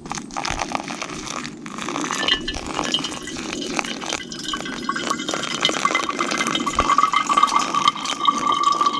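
Hot coffee being poured from a camp pot into a mug, with small metal and ceramic clinks. The filling note of the mug grows stronger in the second half.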